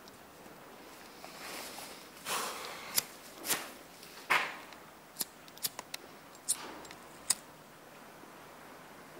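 Footsteps crunching on gritty debris: an irregular run of sharp crunches and clicks, loudest between about two and seven and a half seconds in, over a low steady hiss.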